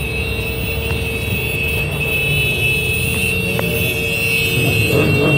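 A group of motorcycles riding slowly in procession, their engines running steadily and growing louder as they approach.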